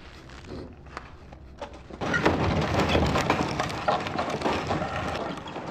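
A power drill drives screws through a wooden coffin lid, sealing it shut: a dense grinding, crackling whir that starts about two seconds in, after a few faint knocks.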